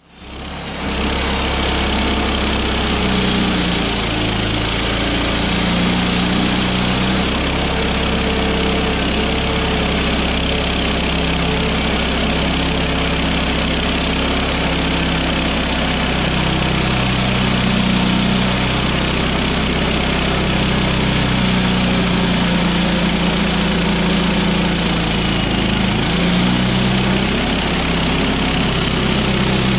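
Woodland Mills HM126 portable bandsaw mill cutting a pine log: its gasoline engine runs under load while the band blade saws through the wood. The engine note wavers slightly as the load changes, fading in over the first second.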